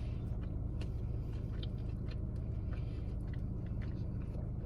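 A person chewing a mouthful of burger, with soft, scattered wet mouth clicks, over a steady low hum.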